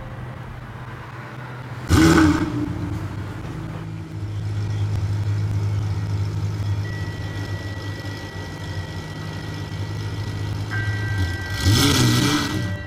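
Pagani Zonda's V12 engine firing up with a loud rev about two seconds in, then running steadily, and revving hard again near the end.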